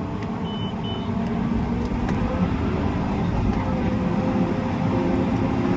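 Steady drone of a tracked tractor's engine heard inside the cab while it pulls a high-speed disc. Two short electronic beeps come from the cab about half a second to a second in.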